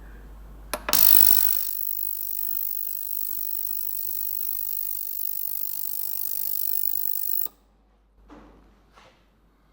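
ToolPro 2.5 L ultrasonic parts cleaner running a heated cleaning cycle, its tank giving a loud, steady, high-pitched hiss. The hiss starts with a click just under a second in and cuts off suddenly about seven and a half seconds in. Two faint knocks follow.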